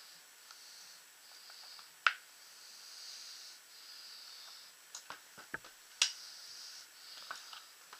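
Plastic clicks and snaps from a Sly Profit paintball goggle lens being worked into its frame. There is a sharp snap about two seconds in, a quick run of smaller clicks around five seconds, and another sharp snap about six seconds in, over a faint hiss.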